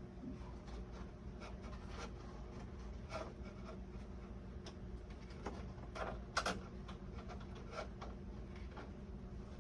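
Light scattered clicks and rubbing of small parts and tools being handled, with a sharper click about six and a half seconds in, over a steady low hum.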